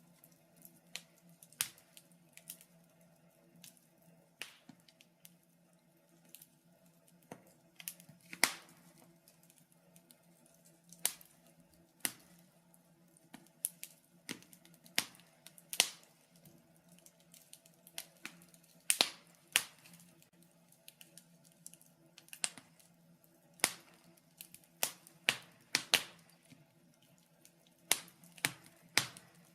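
Wood fire crackling in a fireplace: irregular sharp pops and snaps, a few every second or two, some much louder than others, over a faint steady low hum.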